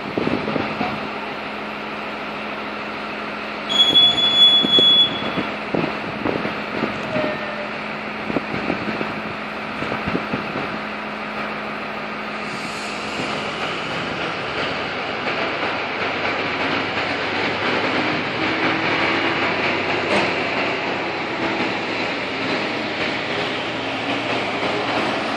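A single high whistle blast of about a second and a half. About ten seconds later the passenger train starts to move off, and the rumble of its coaches' wheels on the rails grows as they roll past.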